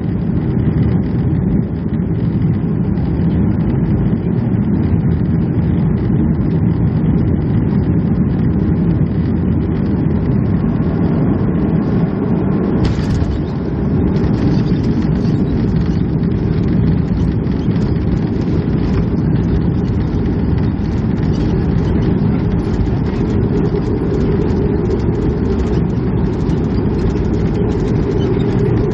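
Cabin noise of a Boeing 737-300 just after landing: a loud, steady low rumble. About halfway in comes a brief sharp burst of noise, after which the sound turns hissier.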